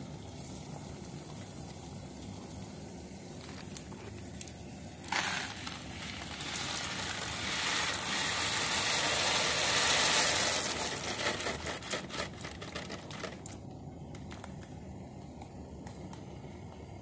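Dry macaroni poured from a cardboard box into a pot of boiling water: a rattling rush that starts about five seconds in, swells to its loudest around ten seconds and trails off into scattered clicks by about thirteen seconds.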